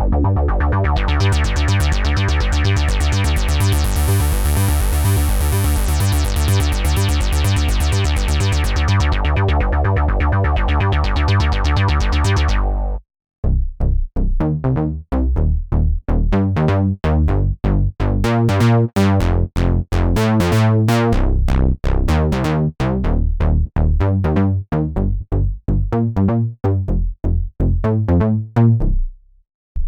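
Roland SH-201 virtual-analog synthesizer playing sequenced bass patches. For about the first 13 seconds a fast repeating bass line runs with its filter sweeping open, bright and buzzy, then closing again. After a brief stop, a different patch plays short, choppy notes in a rhythmic pattern.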